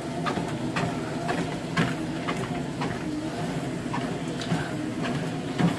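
Motorised home treadmill running at a slow walking speed, set to two: a steady motor and belt hum, with footfalls on the moving belt about twice a second.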